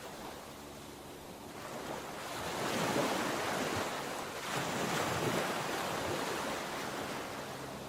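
Sea surf: waves breaking and washing in, swelling louder twice, with wind buffeting the microphone.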